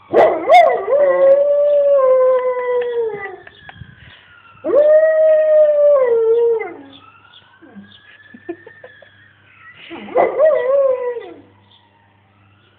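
Chocolate Labrador howling three times in long drawn-out howls, each dropping in pitch as it ends. She is howling along to a police siren, which wails more faintly, rising and falling between the howls.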